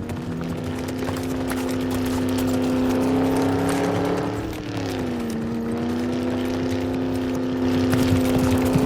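Car engine running at a steady high pitch, dipping briefly in pitch about halfway through, then settling and holding steady again.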